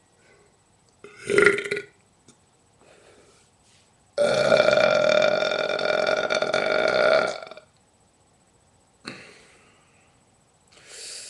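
A person burping: a short burp about a second in, then a long, steady-pitched burp lasting about three seconds, and a fainter one starting near the end.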